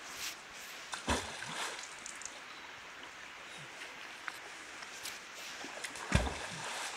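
Two loud splashes of something thrown into a shallow stream, about a second in and again near the end, each a sharp plunk, over the steady hiss of running water.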